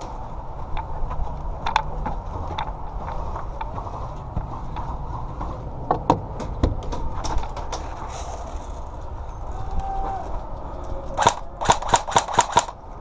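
Airsoft guns firing: scattered single shots, then near the end a quick string of about eight shots at roughly five a second.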